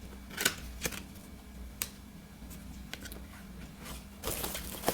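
A few scattered small clicks and taps from a plastic skincare bottle and its packaging being handled, with a brief rustle near the end.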